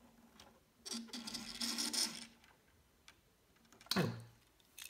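LEGO ATV's small plastic wheels rolling, with the towed hard-plastic boulder and chain rattling and scraping across a tabletop, for about a second and a half. A short sound follows about four seconds in.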